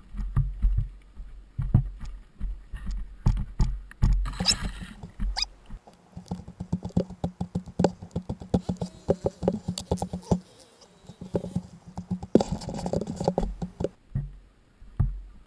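Dirt bike ridden over a rough, rutted trail, heard from an onboard camera: the engine running under a constant rattle of knocks and clunks from the bike over the bumps, with low wind rumble on the microphone for the first few seconds.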